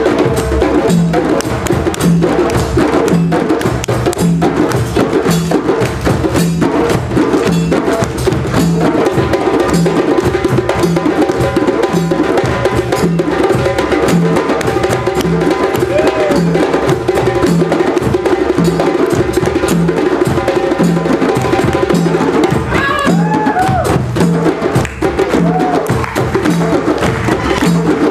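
Djembe ensemble playing together: a fast, dense pattern of hand strokes over a low beat that repeats about every three-quarters of a second.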